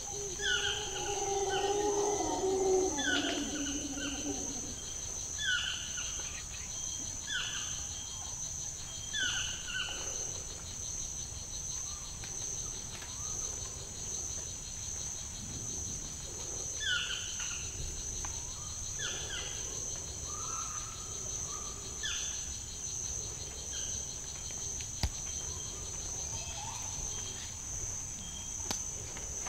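Rainforest insects keep up a steady high-pitched drone, over which a bird gives a short falling call again and again, about every two seconds. A lower, wavering call sounds in the first few seconds.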